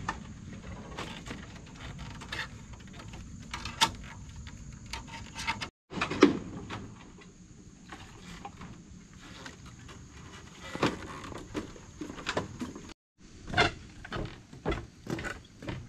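Scattered knocks and clicks of handling work on a bamboo raft: wire being twisted around bamboo poles, then things moved about the bamboo deck. Near the end, a run of footsteps on bamboo planks.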